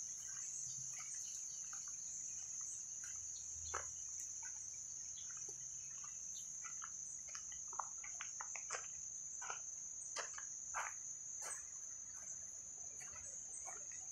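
Faint, steady, high-pitched drone of insects, with scattered short faint ticks and chirps over it.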